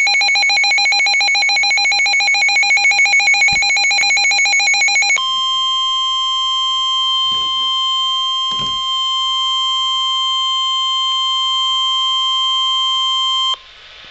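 Emergency Alert System alert tones: a harsh, warbling two-tone attention signal for about five seconds, then a steady single-pitch weather-radio alarm tone for about eight seconds that cuts off sharply near the end. Together they announce a severe thunderstorm warning.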